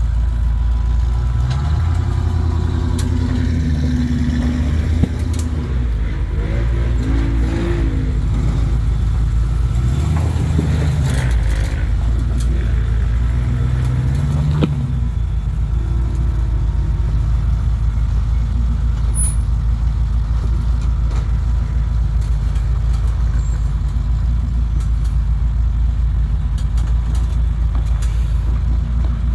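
Lifted Ford Explorer's engine revving up and down as the truck crawls over a boulder, with a couple of sharp knocks. After about fifteen seconds it settles into a steady drone as the truck drives on.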